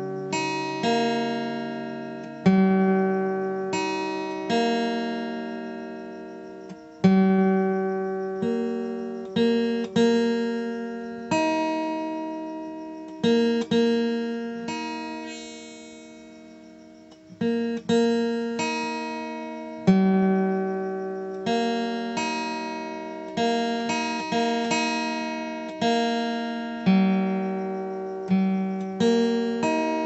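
Background music: a slow melody on a plucked guitar, single notes and chords struck every second or two, each ringing out and fading.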